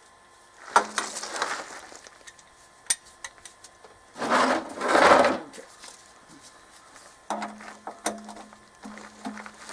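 Ratchet wrench and 17 mm socket working the oil drain plug of a truck's engine oil pan, with sharp metal clicks and tool clatter against a plastic drain pan. About four seconds in there is a louder rush of noise lasting about a second, and near the end another run of quick clicks.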